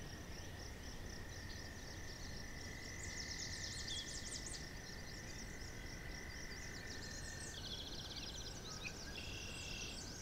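Faint outdoor nature ambience: many short, high bird chirps and trills over a low steady hiss, with a thin steady high note that fades out about three-quarters of the way through and quick repeated chirps near the end.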